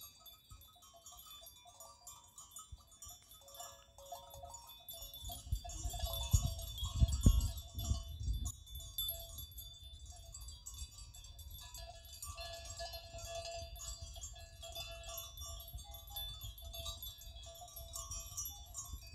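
Small bells on a grazing goat herd tinkle and clank on and off. About five seconds in, wind buffets the microphone with a low rumble for roughly three seconds, the loudest sound here.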